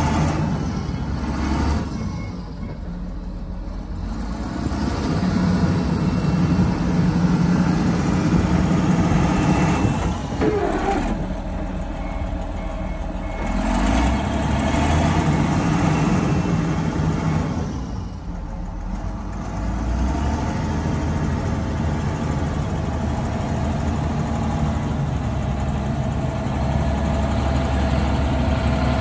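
John Deere 772D motor grader's diesel engine running as the grader drives, its note rising and falling in loudness and pitch a few times.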